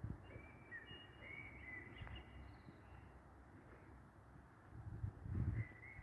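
Birds singing short, level whistled notes, several overlapping in the first three seconds and more near the end, over a low background rumble, with a brief low thump about five seconds in.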